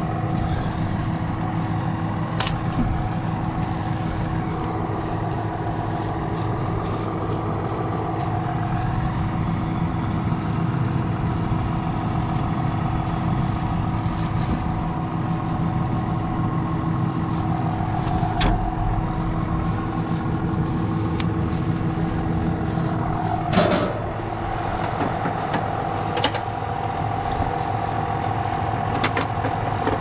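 John Deere 6155R tractor's six-cylinder diesel running steadily at idle, with a few knocks and clicks from the baler's cover and net wrap being handled. About two-thirds of the way through, a knock is followed by one steady tone in the machinery hum cutting out.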